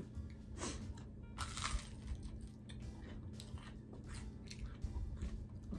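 Close-up crunching and chewing of a breaded, fried onion ring: a string of crisp crunches as it is bitten and chewed.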